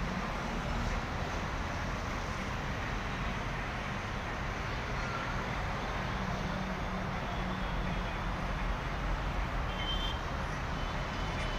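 Steady road traffic from a busy main road below, a continuous rumble of passing cars and other vehicles.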